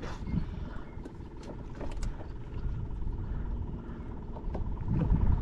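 Low, uneven wind rumble on the microphone over water moving against a kayak hull, with a few faint clicks.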